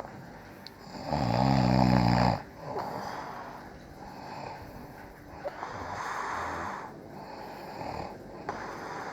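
A sleeping person snoring: one loud, low snore about a second in, lasting just over a second, then quieter rasping breaths, the longest about six seconds in.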